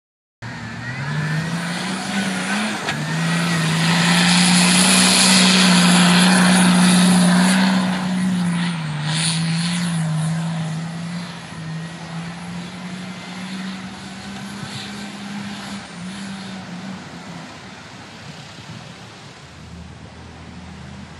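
A 4x4 off-road vehicle's engine running hard at a fairly steady pitch, with a wide hiss of churned ground that swells a few seconds in, then both fade as the vehicle moves off.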